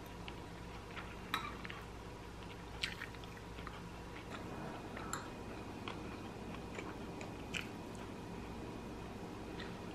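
Close-up chewing while eating grilled pork and rice, with several sharp clicks of metal chopsticks on the dishes, the loudest about one and a half and three seconds in, over a steady low hum.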